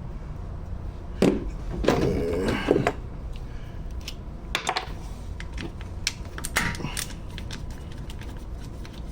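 Hand tools and steel bolts clicking and clinking on a metal engine case as a socket works out the stator cover bolts. Knocks about a second and two seconds in, with a brief metallic ring, then lighter irregular ticking toward the end.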